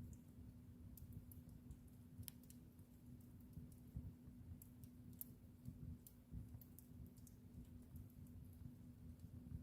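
Wood fire in a fireplace crackling faintly, with sharp pops and snaps at irregular moments over the low rumble of the burning.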